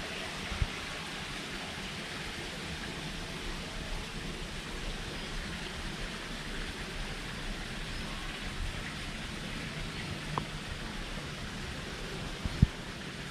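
Steady rushing hiss of running water or rain, even throughout, with a couple of soft knocks near the end.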